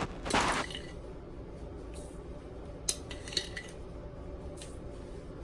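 Tablespoons of sugar going into a mixing bowl: a short rush of pouring sugar near the start, then a few light clinks of a metal spoon against the bowl.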